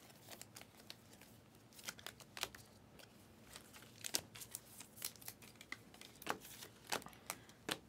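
Glossy trading cards being slid off a stack and flipped one by one by hand: faint, irregular clicks and snaps of card against card.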